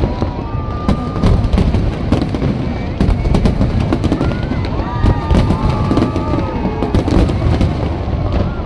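Aerial fireworks display: many shells bursting in quick succession, a dense run of bangs and crackles over a steady low rumble.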